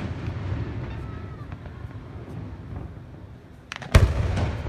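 Aerial firework shells bursting. The rumbling echo of one burst dies away, then near the end come a couple of small cracks and a loud bang from the next shell, with rumbling echo after it.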